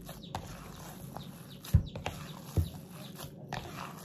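Hands kneading minced meat in a plastic bowl: wet squelching and squishing, with two dull thumps near the middle, less than a second apart.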